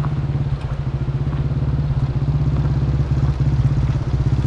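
Small pit dirt bike's single-cylinder engine running steadily at low revs, with an even, rapid putter.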